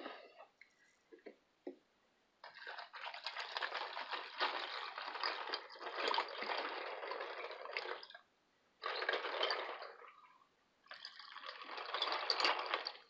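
Hydrogen peroxide pouring from a bottle into a plastic tub, splashing over the plastic bricks inside. It comes in three pours: a long one of about five seconds starting a couple of seconds in, then two short ones.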